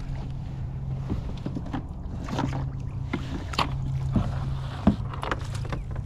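A hooked fish splashing at the surface beside a kayak as it is reeled in, in several short sharp splashes, the loudest near the end, over a steady low hum.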